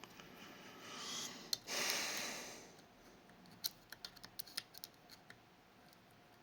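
Small, quick metallic clicks of a lock pick probing the levers inside a Fichet 484 lever sidebar lock, bunched between about three and a half and five seconds in. Around two seconds in, a short soft whooshing noise is the loudest thing.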